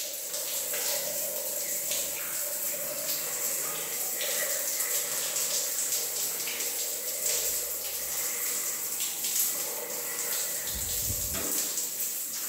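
Shower running: a steady hiss of water spraying and splashing onto the hand and the tiled wall.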